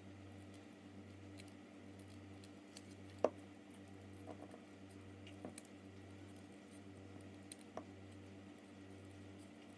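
Scissors snipping paper in short, scattered clicks, the loudest about three seconds in, over a faint steady low hum.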